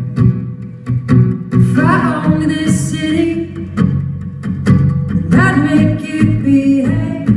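Song intro built from voice alone: wordless sung vocal lines over vocal-percussion clicks and beats in a steady rhythm.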